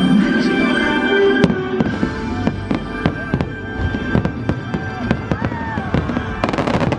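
Fireworks bursting in quick succession over loud show music, with whistling glides rising and falling among the bangs. The bangs begin about a second and a half in and come thick and fast near the end.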